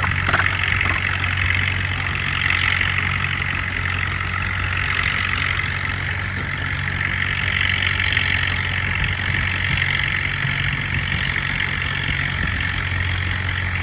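Antique farm tractor engines running at low speed, a steady low engine drone that holds even throughout.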